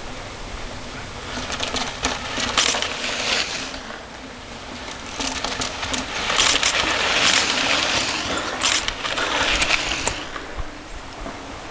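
Mountain bikes riding past close by on dry, sandy dirt: knobby tyres crunching over grit, with metallic rattles and clicks from the bikes. It comes in two waves, the louder one from about five to ten seconds in as a group of riders goes by.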